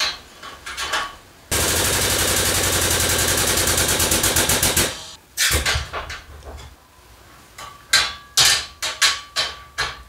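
Cordless impact wrench hammering as it drives dimple dies into steel rack side pieces: one long burst of about three seconds, a shorter burst, then several short bursts near the end.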